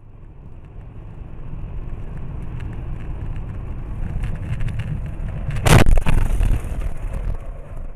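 A car driving, with a steady low road-and-engine rumble, then a loud collision impact about three-quarters of the way through, followed briefly by rattling.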